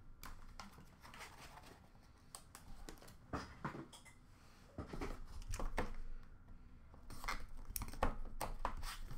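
Hands handling trading-card boxes and packaging: scattered taps, clicks and rustles of cardboard and plastic, busier in the second half.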